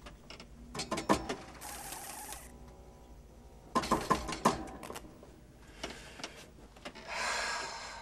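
Clicking and clanking machinery inside a mechanical rhino, in two clusters about three seconds apart, with a short hiss after the first cluster and another near the end.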